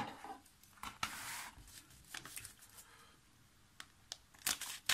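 A paper mailing envelope rustling as it is handled, then scissors cutting into its edge in several quick snips near the end.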